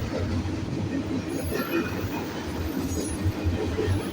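Freight train of autorack cars rolling past, with a steady rumble of steel wheels on the rails.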